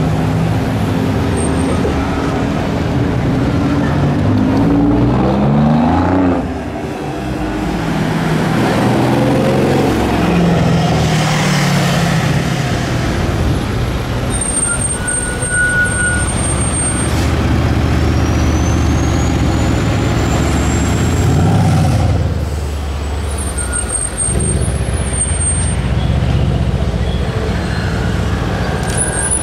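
RennTech-tuned Mercedes-AMG C63 S's twin-turbo 4.0-litre V8 pulling hard under acceleration. The engine note climbs through the revs and drops sharply at a shift about six seconds in, then climbs again and drops once more about 22 seconds in.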